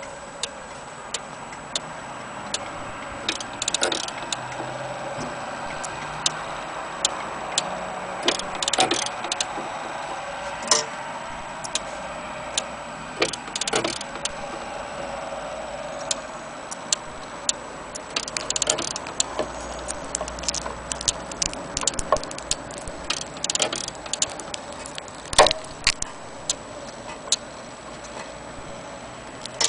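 Telenorma electric wall clock ticking at about one tick a second. Louder irregular clicks and knocks from hands working at the clock case and its battery wiring come every few seconds.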